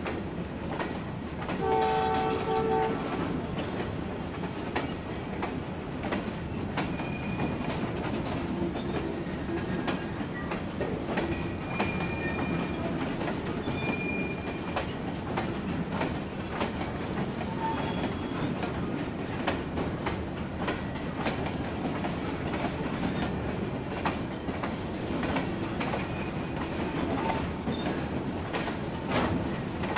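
Long train of empty coal hopper wagons rolling past with a steady rumble and the wheels clicking over rail joints. A short horn blast comes about two seconds in, and brief high wheel squeals sound now and then.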